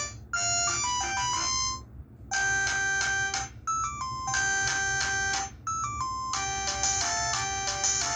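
Huawei ETS688 phone playing its built-in polyphonic ringtone melodies through its speaker. A short phrase of notes ends just before two seconds, a held electronic chord sounds twice with quick note runs between, and a different, busier melody starts about six seconds in.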